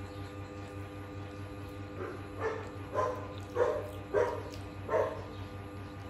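A dog barking: a run of about five short barks, roughly two a second, starting about two seconds in.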